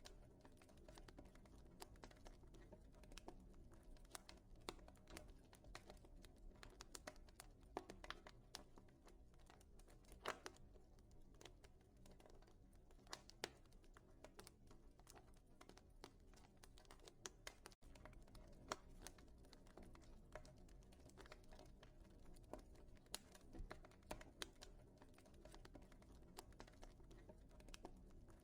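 Wood fire in a fireplace crackling faintly: irregular snaps and pops over a low steady rumble, with a split-second gap in the sound about two-thirds of the way through.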